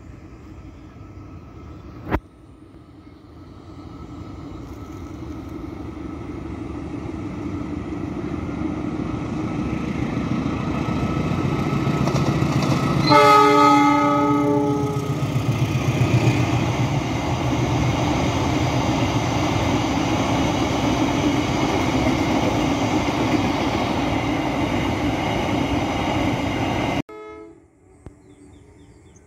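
Diesel locomotive approaching and passing: engine and wheel-on-rail noise builds steadily, a horn blast sounds for about two seconds midway, and the train noise runs on until it cuts off abruptly near the end. A single sharp click sounds about two seconds in.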